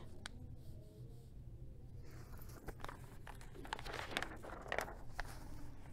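Faint rustling and soft clicks of paper as a picture book is handled and its page turned, over a low steady hum.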